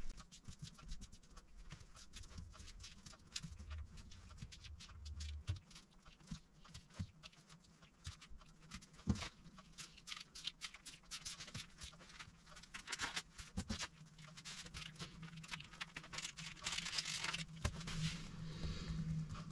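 Faint rustling and crinkling of baking paper, with light irregular taps and crackles, as a sheet of puff pastry is rolled up into a log by hand; the rustling grows fuller near the end.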